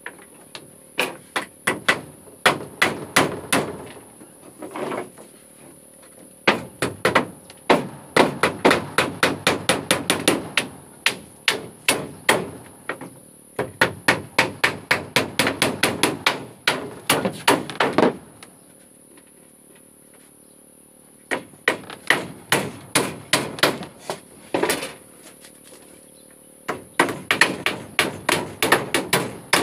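Two claw hammers driving nails into wooden floor planks: quick runs of sharp strikes, several a second, in bursts broken by short pauses.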